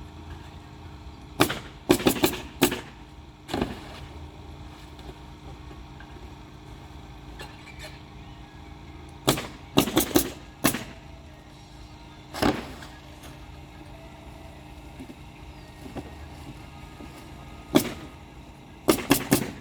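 Loud, sharp knocks from roof repair work, the 'thak thak thak' of strikes on the roof, coming in irregular bursts of two to five quick blows several seconds apart. A steady low hum runs underneath.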